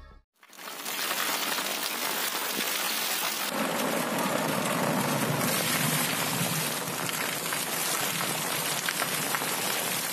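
Heavy rain pouring down steadily, with water splashing from a roof drain spout. It starts abruptly about half a second in and grows fuller a few seconds later.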